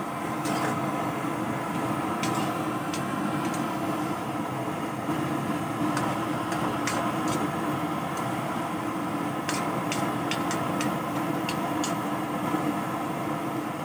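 Metal spatula clinking and scraping against an aluminium wok during stirring, with a few sharp clicks between about six and eleven seconds in, over a steady droning hum.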